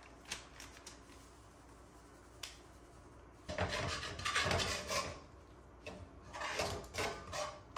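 Metal tongs stirring and tossing greens in a frying pan on the stove, scraping and clattering against the pan in two bursts, the first about three and a half seconds in and the second near the end. Before that, only a few faint clicks.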